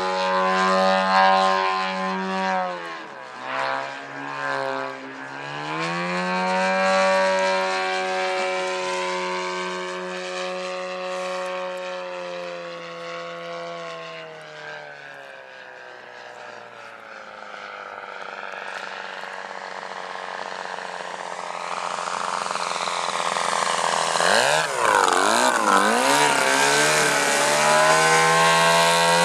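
A 44% scale Yak 54 RC aerobatic plane's DLE-222 four-cylinder two-stroke gas engine, turning a 34x10 propeller, goes up and down in power through 3D manoeuvres. It drops off and comes back a few seconds in, and fades as the plane flies far off around the middle. It swells again with a sweeping, wavering pitch as the plane passes close, and ends loud at high throttle with the plane climbing nose-up.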